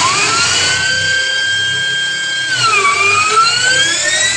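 Electric power tool motor switched on and spinning up fast to a steady high whine. About three seconds in, the pitch sags as the tool bites into the work under load, then climbs slowly back up.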